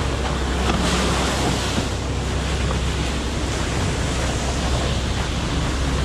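Ready-mix concrete truck running, its engine a steady low hum under a continuous rushing wash as wet concrete slides down the chute.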